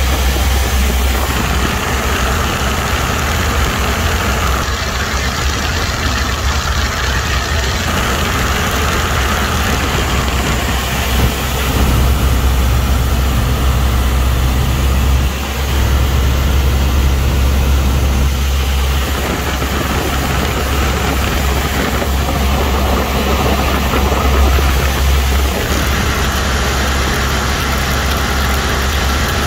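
Single-engine propeller airplane's engine and propeller droning steadily in cruise, heard from inside the cockpit, with a low hum and a slight rise in level about twelve seconds in.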